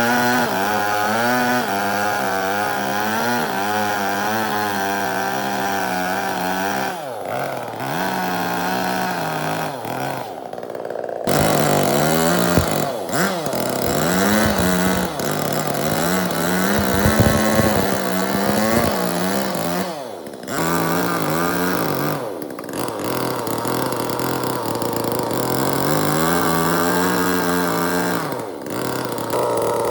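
Chainsaw running and cutting wood, its engine pitch rising and dipping as it goes into and out of the cut, with several brief breaks.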